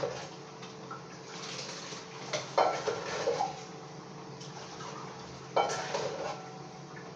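Kitchenware clattering: two bursts of dishes and utensils knocking together, the first about two and a half seconds in and the second near six seconds, over a faint steady hum.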